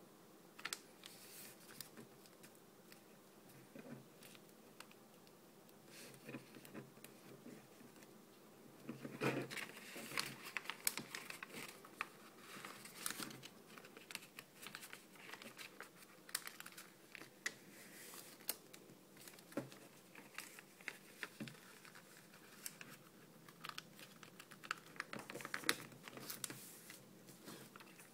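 A sheet of lined notebook paper being folded by hand into a paper airplane: rustling and crinkling, with quick scattered ticks as the folds are pressed and creased, busier from about nine seconds in.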